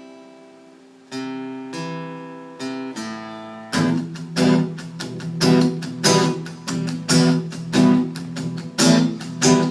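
Instrumental break of a worship song on acoustic guitar: a few chords left to ring, then steady rhythmic strumming from about four seconds in.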